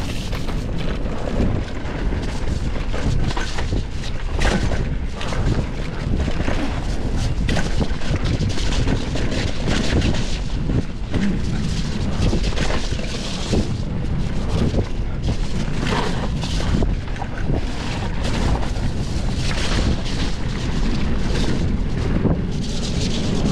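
Wind noise on the microphone over the continuous rattle of a mountain bike descending a dirt trail, with tyres rumbling and many quick, irregular knocks and clatters from the bike.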